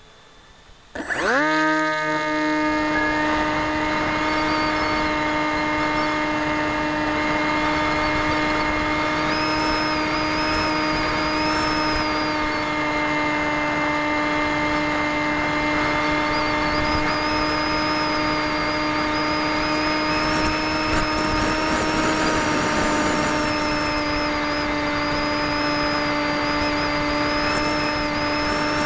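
RC model airplane's motor and propeller, heard from a camera on board: it spins up quickly about a second in, then runs at a steady pitch, a loud, even drone through the flight.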